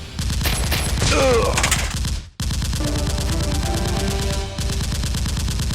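Rapid automatic gunfire, a dense stream of shots that breaks off briefly a little past two seconds in and then carries on.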